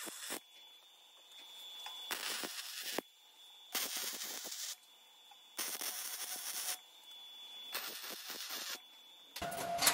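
Wire-feed arc welder laying short welds on steel: four bursts of welding crackle, each about a second long, with short pauses between them. Near the end a louder, different sound cuts in.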